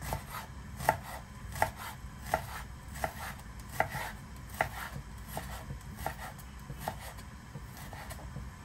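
Kitchen knife slicing fresh ginger into matchsticks on a wooden cutting board. Each cut ends in a sharp knock of the blade on the board, roughly one every three-quarters of a second, with lighter taps between.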